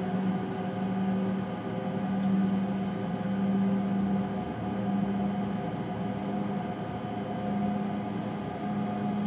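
Electric train running, heard inside the driver's cab: a steady low hum with several droning tones, the lowest swelling and easing off every second or so.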